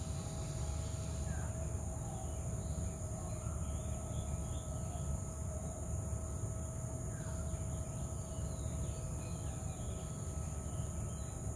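Steady high insect chorus over a constant low rumble, with a few faint bird chirps.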